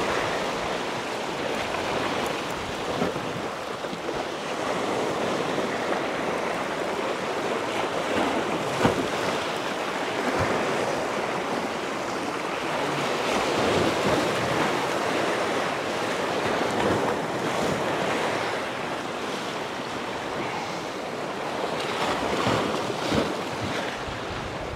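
Small sea waves washing over a rocky shore, the surf noise swelling and ebbing, with wind buffeting the microphone. A single sharp knock about nine seconds in.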